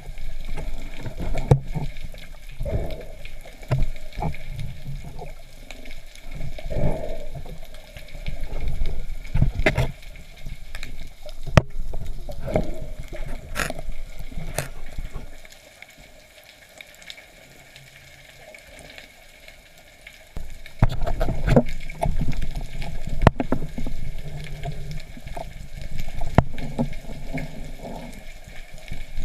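Water sound underwater: rushing and gurgling with irregular sharp clicks and knocks, dropping quieter for a few seconds past the middle.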